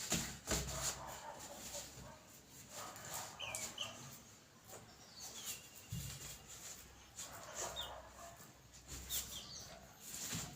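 Chickens calling: scattered short, high chirps over a background of clicks and knocks, with low thumps at the start and about six seconds in.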